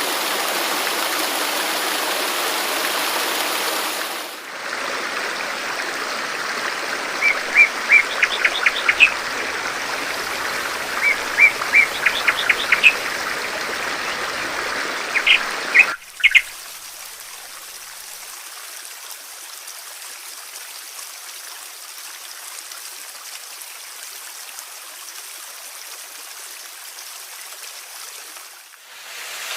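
Running water from a stream or waterfall, with small birds chirping in three short bursts of quick chirps near the middle. About halfway through, the water gives way to a quieter, hissier rush of water.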